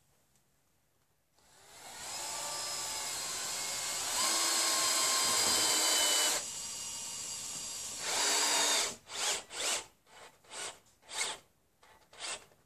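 Cordless drill running into a wooden roof batten: a steady high motor whine for about seven seconds, rising in level partway through, then around seven short bursts near the end.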